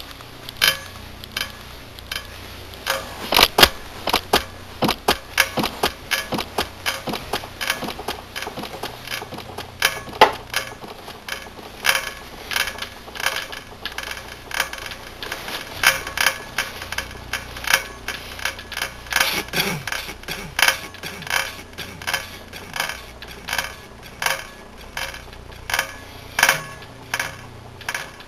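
An irregular series of sharp clicks and knocks, roughly one to three a second, over a low steady hum.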